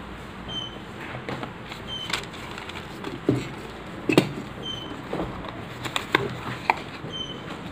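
Hands handling paper and a cardboard box: irregular taps, knocks and rustles as the box is picked up and opened.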